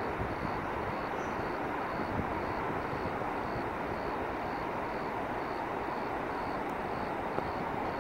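A steady, even roar of trains running through a rail yard, with a faint high-pitched beep repeating about twice a second.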